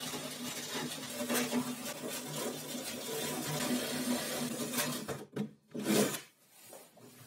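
Cordless drill cutting through a plywood panel with a hole saw: a steady motor whir with the teeth rasping through the wood, stopping about five seconds in. Two short bursts of the drill follow.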